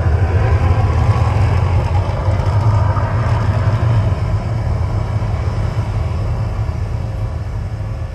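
Deep, steady rumble of the Mirage volcano show as the eruption winds down, slowly fading over the second half.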